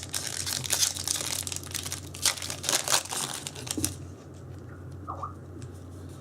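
Foil trading-card booster pack wrapper crinkling and tearing as it is opened, a dense crackle for about four seconds that then dies down, over a steady low hum.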